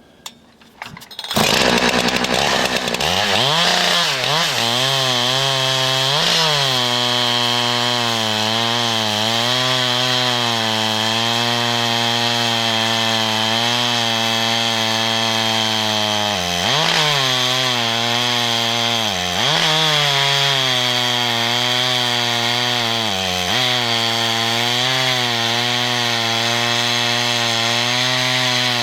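Chainsaw on a chainsaw lumber mill coming in about a second in, revving up and then ripping lengthwise through a log at a steady high pitch. Three times in the second half the engine pitch sags briefly under the load of the cut and recovers.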